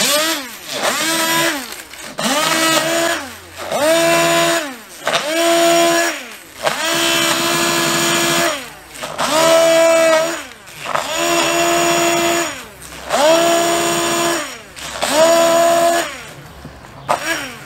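Hand-held immersion blender pulsed on and off about nine times, each burst whining up to speed and winding down, as it chops a bowl of fresh, wet plantain leaves into a pulp. It stops near the end.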